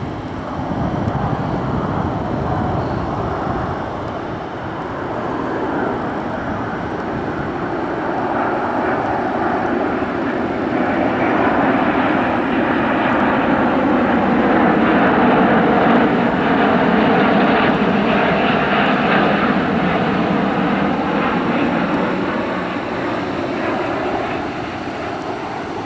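Airbus A350-900 airliner landing, the jet noise of its Rolls-Royce Trent XWB engines building to its loudest a little past the middle and then easing off.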